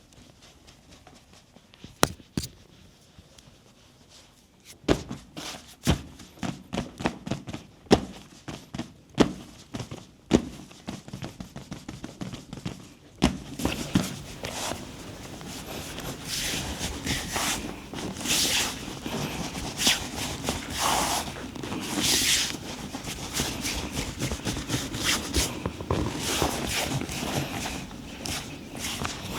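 Hands working in a massage session: a run of separate sharp slaps and clicks, then about halfway through a steadier rubbing and swishing with more slaps in it.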